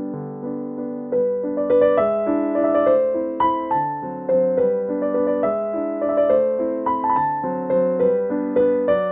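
Background piano music: single notes and chords struck and left to ring, changing a few times a second.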